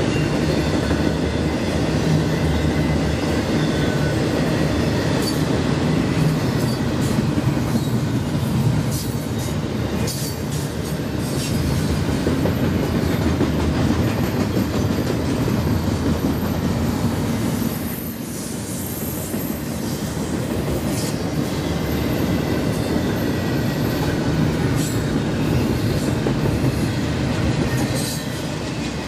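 Freight train rolling past: a steady rumble of steel wheels on rail, with scattered clicks as the wheels cross joints and occasional faint high wheel squeal.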